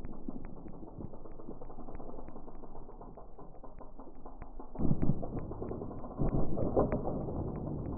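Mountain bike rolling off a small rock drop and along a dirt trail, its tyres rushing loudest about five seconds in and again around six and a half seconds as it rides close by. A light, regular ticking about four or five times a second runs underneath.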